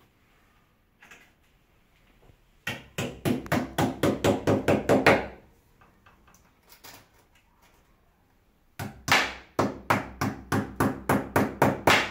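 Quick hammer blows on a wall fixing, about five a second, in two runs of a few seconds each: the first starts about three seconds in, the second about nine seconds in and runs past the end.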